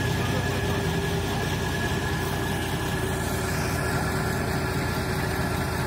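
Forklift engine idling steadily, an even low rumble with no change in speed.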